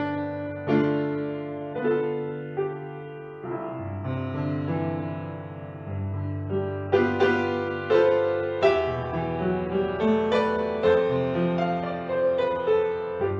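Solo piano music: chords and melody notes struck and left to ring, growing louder about seven seconds in.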